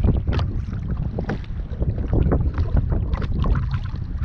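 Wind buffeting the microphone in a steady low rumble, with scattered short clicks and knocks throughout.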